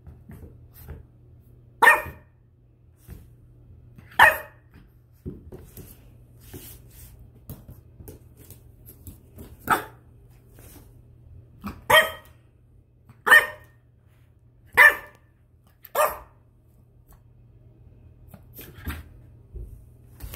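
10-week-old French Bulldog puppy barking: seven short, sharp barks at uneven gaps of one to several seconds, then a fainter one near the end. A puppy just finding his voice, barking at nothing in particular.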